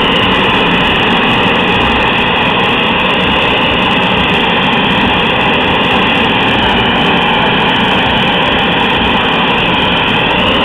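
Handheld gas torch running at full flame as it heats glass on a blowpipe: a loud, steady rush of burning gas, with no change in level.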